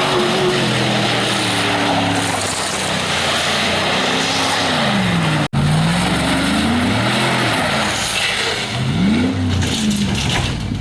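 A Chevy pickup's 5.3-litre LS V8 revved up and down repeatedly and loudly, with a brief break about halfway through. The motor is running well.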